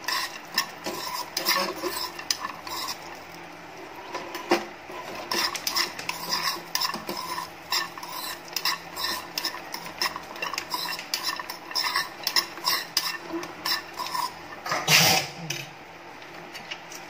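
Metal spoon stirring cashew nuts roasting in ghee in a nonstick pan: frequent clicks and scrapes of the spoon on the pan and the nuts clattering against each other, with one louder clatter near the end.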